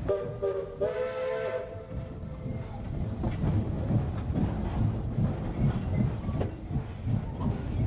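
Steam whistle of East Broad Top No. 15, a narrow-gauge steam locomotive, giving one short blast of about a second and a half, several tones sounding together and stepping up in pitch partway through. Under and after it, the steady rumble and clickety-clack of the train rolling over the rails.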